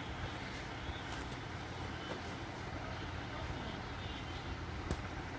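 Steady low background rumble with a few faint clicks and light handling knocks, and one sharper click near the end.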